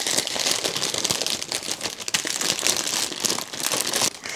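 Small plastic zip bags of diamond painting drills crinkling as they are handled: a dense, continuous run of crackles.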